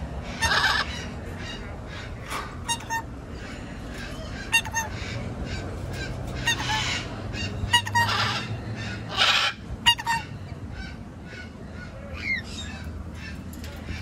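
Parrots squawking: harsh, loud calls about half a second in and again in a cluster around the middle, with fainter squawks in between.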